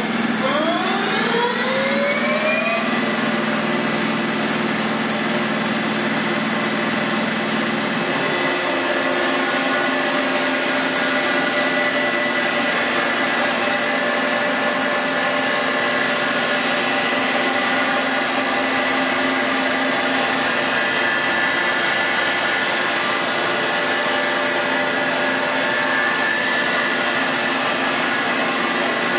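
2001 Mazak Powermaster Universal CNC lathe running under power with its chuck spinning. Its whine rises in pitch over the first few seconds as the spindle speeds up, then holds as a steady hum with several whining tones. A low hum and a high tone drop out about eight seconds in.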